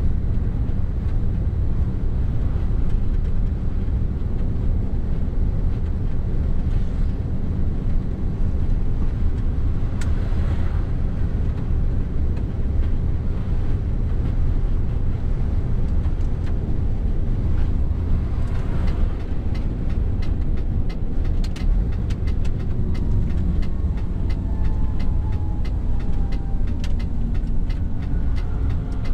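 Mercedes Actros truck heard from inside the cab at motorway speed: a steady low rumble of diesel engine and tyre noise. Over the last several seconds a faint whine slowly falls in pitch, with scattered light ticks.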